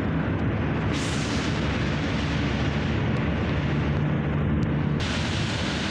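Steady, loud rumble of a vehicle on the move: road and engine noise, heaviest in the low end, with no distinct events.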